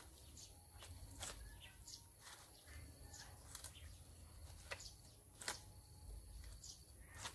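Faint, scattered clicks and snaps from a coconut palm as coconuts are twisted loose from their cluster by hand, over a low outdoor rumble.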